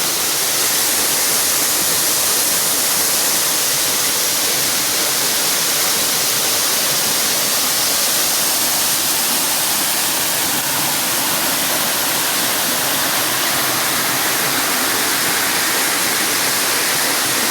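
Waterfall rushing, a loud and steady hiss of falling water.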